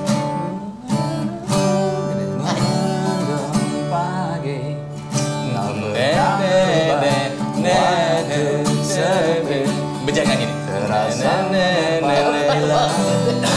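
Acoustic guitar strummed and picked in a slow pop song, with a man singing along from about six seconds in.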